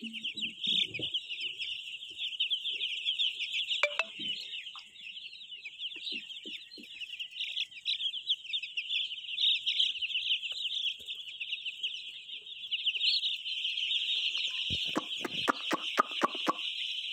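A large flock of baby chicks peeping without a break, a dense chorus of high-pitched cheeps. Near the end a quick run of knocks cuts through it.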